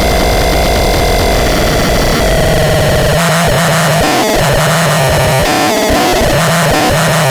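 Absurdon X1 Bax Box electronic noise box giving out a loud, harsh wall of noise with a held high tone. About three seconds in, a low tone begins pulsing on and off, roughly once a second.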